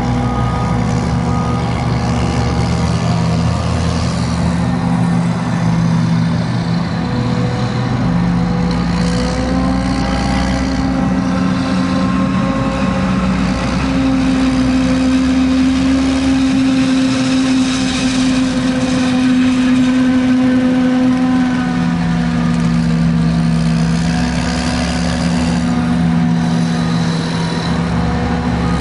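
Heavy diesel engines of a forage harvester and tractors running steadily under load. Several engine notes overlap, and their pitch steps up and down now and then.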